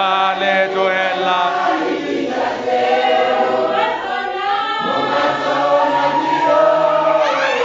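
Church congregation, mostly women's voices, singing together on long held notes. Near the end one voice slides sharply up high.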